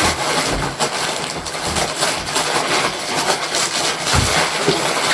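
Plastic packaging being handled, rustling and crinkling steadily, with a couple of dull handling bumps.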